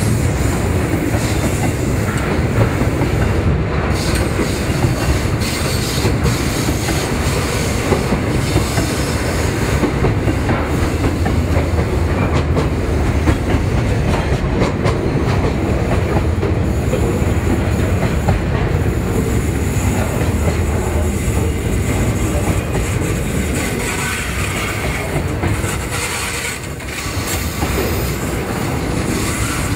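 Container wagons of a long freight train rolling steadily past, their steel wheels running on the rails.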